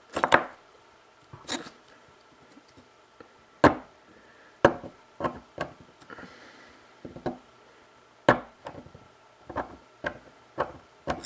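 3D-printed plastic pump drill worked by hand into soft wood: a string of irregular sharp clicks and knocks, roughly one a second, as the handle is pushed down the twisted shaft to spin a small bit.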